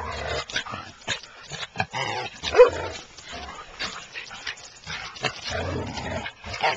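Dog yipping and whimpering in excited greeting, with its loudest short yelp about two and a half seconds in, amid scuffling and clicking handling noise close to the microphone.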